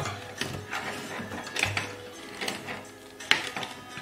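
Laptop case clips and a prying tool clicking and knocking at the hinge edge of an HP ProBook 440 G5's display as it is pried to unlock it. About six sharp, irregularly spaced clicks.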